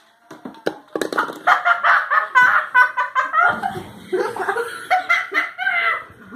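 Children laughing and giggling, after a few short clicks in the first second.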